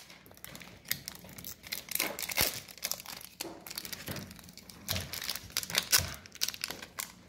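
Foil Pokémon booster pack crinkling and tearing as it is opened by hand, an irregular run of crackles.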